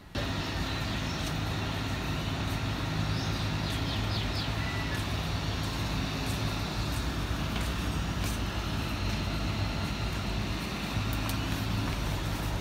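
Steady low rumble of outdoor background noise, starting abruptly, with a few faint high chirps about three seconds in.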